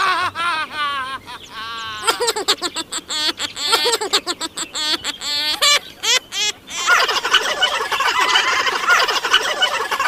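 Budgerigars chattering and warbling in quick chirps that bend up and down, with scattered sharp clicks in the middle; from about seven seconds in the chatter turns dense and continuous.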